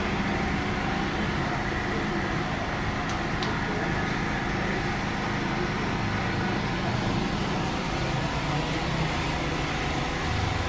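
Steady street-side background noise of road traffic, with a low hum running under it.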